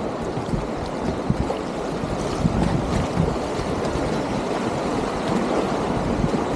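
River rapids rushing and splashing around a kayak, with water and wind buffeting the boat-mounted camera's microphone.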